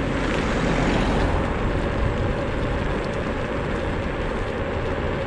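Xiaomi M365 electric scooter on 8.5-inch tyres cruising on a paved path at about 21 km/h: a steady rush of wind and tyre-on-pavement noise.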